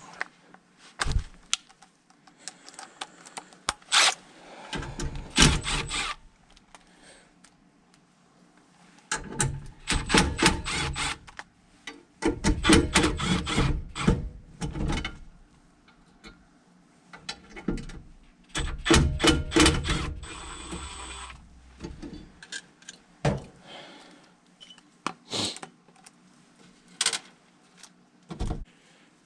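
Hand tools working the metal gas pipe fittings on a furnace gas valve: several spells of rapid clicking and clanking, with single knocks in between.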